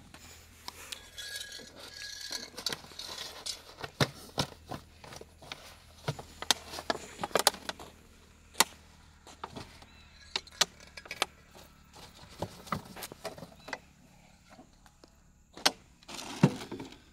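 Irregular clicks, crackles and knocks of a clear plastic bottle being unscrewed, handled and tipped on the ground, with a metal snake hook knocking against it. The two loudest knocks come near the end.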